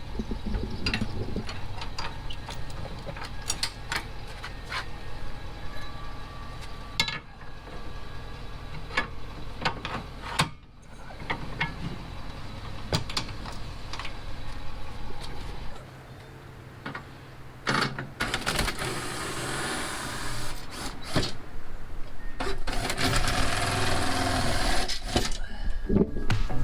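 Pickup truck engine running with a steady low hum and scattered clicks and knocks; the hum stops about two-thirds of the way through, followed by two stretches of hiss.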